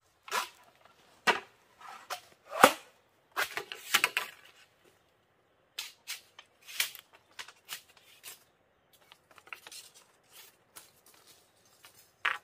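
Machete chopping at a green bamboo pole: a string of sharp, irregular cracks, the heaviest in the first few seconds and lighter strikes after.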